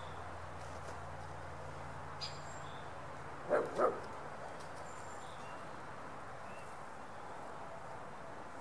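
A dog barks twice in quick succession, two short barks about three and a half seconds in. Faint bird chirps sound in the background.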